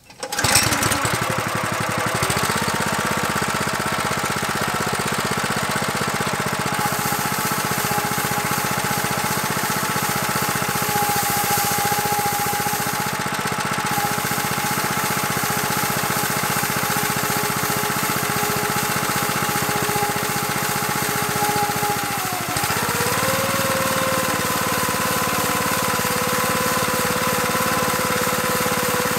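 Small single-cylinder petrol engine of a top-dresser sand spreader starting up and running steadily. About 22 seconds in its note dips briefly and then settles a little higher as the lever is pulled to set the conveyor belt and chain drive running.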